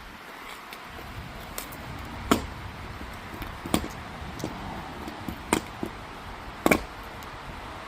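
Four sharp snaps, irregularly spaced a second or two apart, over a steady low rumble: a trigger wire being touched to a seized starter motor's terminal and sparking, with the starter not turning.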